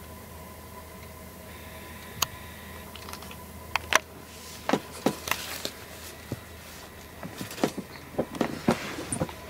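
A cat heaving and retching. Short gulping contractions begin about four seconds in and come faster and more regularly near the end, about twice a second: the build-up to throwing up cat grass. A disposable pet pad rustles as it is slipped under the cat's face.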